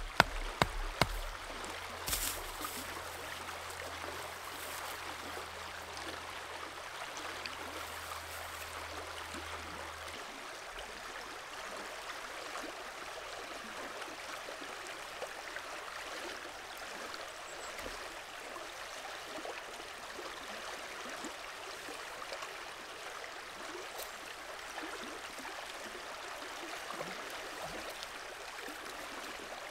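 A hatchet strikes a few times, sharply, in the first couple of seconds. After that a river flows steadily.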